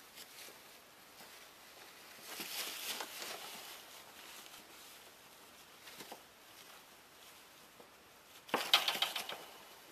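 Ferrets scrabbling and burrowing through shredded paper bedding: irregular crinkling rustles that come in bursts, the loudest about three quarters of the way through.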